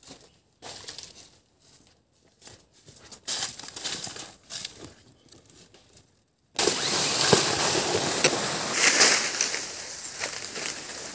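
Dry banana leaves rustling and crackling in scattered bursts. About six and a half seconds in, a sudden loud, continuous rustle and scrape with sharp clicks starts as the camera is picked up and carried through the plants.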